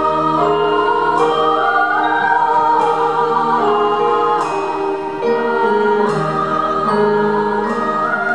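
Live orchestra with voices singing a slow Christmas song, holding long notes that move step by step.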